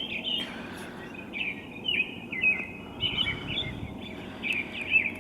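Songbirds chirping before dawn: a busy run of short, quick, high chirps that keeps going over a steady low background noise.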